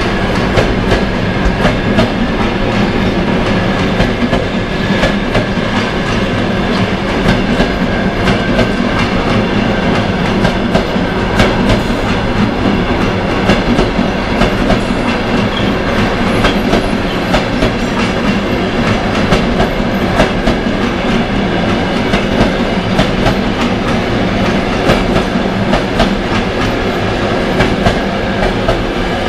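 Passenger coaches of a departing train rolling past, their wheels clattering and knocking over rail joints and points.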